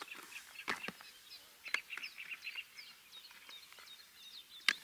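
Small birds chirping and singing, broken by three sharp clicks of fishing tackle being handled as a lure is changed.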